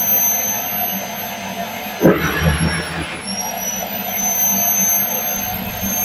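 Miele Tango Plus 1800 canister vacuum cleaner running, its bare hose sucking at nylon tights: a steady high motor whine over the rush of air. About two seconds in there is a sudden rush, and the whine dips in pitch for about a second, then climbs back.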